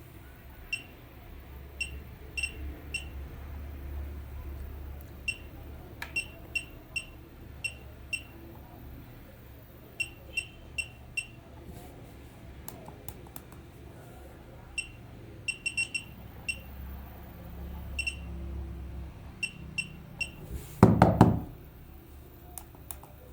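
Electronic beeper giving short high beeps, singly and in quick runs of two to four, at irregular intervals over a steady low hum. A louder buzzing burst lasts about half a second, a little over three quarters of the way through.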